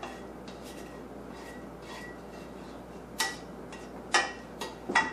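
A utensil scraping and knocking against a frying pan as browned ground beef is scraped out into a bowl. There are soft scrapes at first, then several sharp clinks that ring briefly in the last two seconds.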